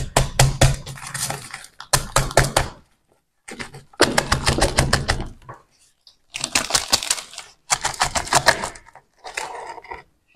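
A thin plastic plant pot crackling and clicking in rapid bursts as it is squeezed and tapped to work a root ball loose, with soil spilling out.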